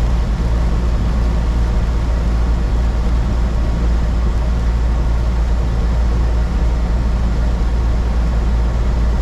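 Steady drone of a semi-truck driving at highway speed, heard inside the cab: a constant low engine and road rumble with an even hiss of tyre and wind noise above it.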